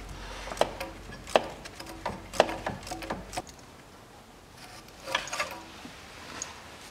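Irregular clicks and knocks of a hand tool on metal as a bolt on a diesel engine's intake manifold is worked loose.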